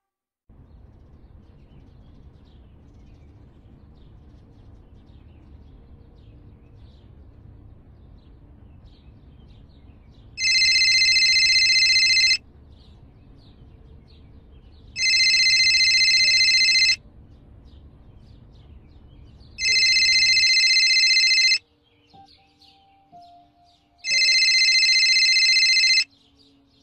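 A phone ringing four times with an electronic ringtone. Each ring lasts about two seconds, with gaps of about two and a half seconds, over a faint low rumble that stops during the third ring.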